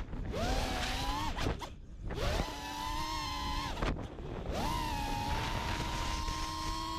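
Onboard sound of a five-inch freestyle quadcopter's Emax 2306 2400KV brushless motors spinning APC 5x4x3 props: a whine that cuts out twice and each time sweeps quickly back up in pitch as the throttle is punched, then holds steady and climbs slightly, over wind rush.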